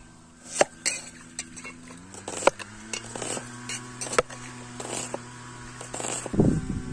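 Metal cooking pots and utensils clinking and knocking, a string of sharp clinks scattered through the moment, with a louder low thump near the end. Underneath is a steady low hum.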